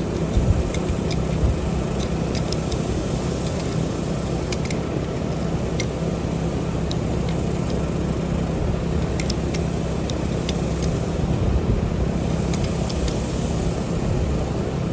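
A steady engine-like hum, with scattered light clicks and taps.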